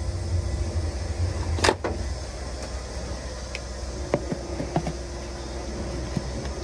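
Clicks and knocks of truck air-line couplings being handled and connected to a trailer's coupling heads, one sharper knock about two seconds in, over a steady low rumble.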